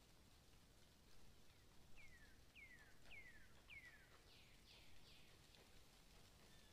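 A faint bird calling over near silence: a run of about seven short notes, each sliding downward in pitch, about two a second, starting about two seconds in and fading towards the end.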